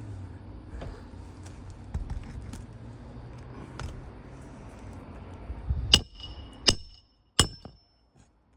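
Hammer striking a roof snake three times in quick succession, metal on metal with a short ringing, driving a roofing nail back down under a shingle. Before the strikes, quieter handling noise with scattered light clicks.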